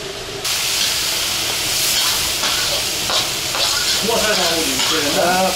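Meat and julienned yellow carrots sizzling in hot oil in a kazan as they are stirred. This is the zirvak, the frying base of a plov. The hiss comes in suddenly about half a second in and stays steady.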